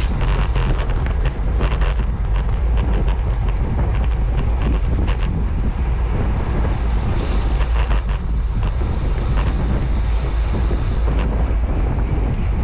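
Wind rushing over an action camera's microphone on a road bike at about 24 mph: a steady low rumble with gusty buffeting.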